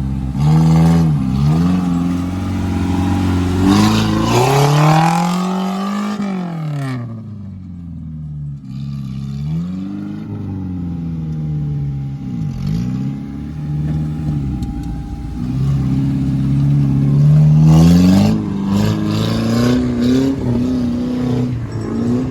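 Off-road 4x4's engine revving up and falling back again and again, with several long climbs in pitch and quick drops between them.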